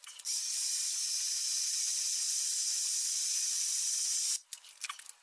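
A steady hiss, like a pressurised spray, that starts abruptly and cuts off after about four seconds.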